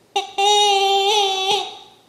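Squawking rubber chicken dog toy being squeezed in a dog's jaws: a short squawk, then a long, nearly steady-pitched squawk of about a second that stops abruptly.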